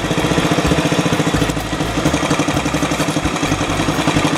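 Yamaha Majesty 125 FI scooter's single-cylinder four-stroke engine idling through an aftermarket stainless muffler, a steady fast pulsing exhaust note.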